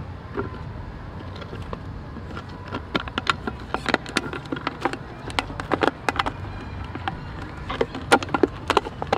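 Empty plastic water bottle crackling and crinkling as a young monkey grips and mouths it: a run of sharp, irregular crackles beginning about two and a half seconds in.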